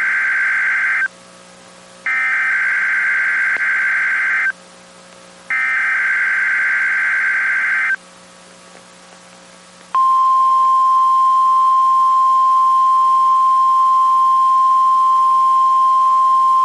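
NOAA Weather Radio Required Weekly Test signals: three bursts of SAME digital header data, harsh buzzing bursts about two and a half seconds long with one-second gaps between them, the first already under way. About ten seconds in, the steady 1050 Hz warning alarm tone starts and holds.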